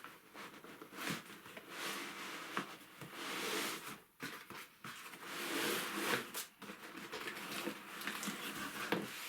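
Train set box and its packaging being opened and handled: repeated rustling and scraping swells with a few sharp clicks.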